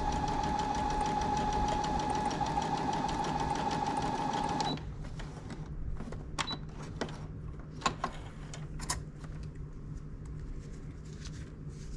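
Brother Strong & Tough ST150HDH computerized sewing machine sewing steadily through heavy layered fabric at a slowed speed, then stopping abruptly about five seconds in. A few sharp clicks and taps follow as the fabric is handled at the needle and presser foot.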